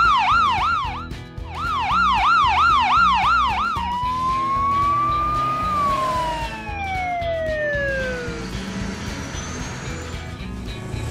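Police siren sound effect: a fast wail rising and falling about four times a second in two runs with a short break between. After that comes a single long tone that rises slowly and then falls away over a few seconds, with background music underneath.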